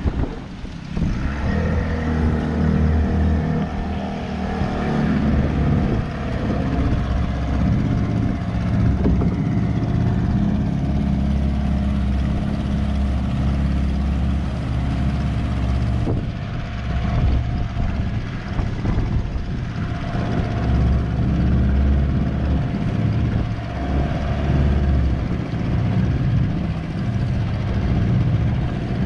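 Outboard motor of a small open fishing boat running steadily under way while trolling.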